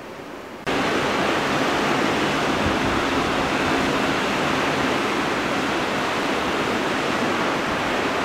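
Steady rush of ocean surf breaking on the beach, with wind buffeting the microphone. It starts abruptly under a second in, replacing a faint steady hiss.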